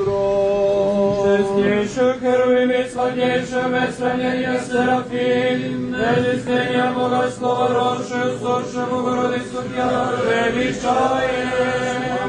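Serbian Orthodox church chant: voices singing a melody over a low held drone note, which shifts up to a new pitch about two seconds in.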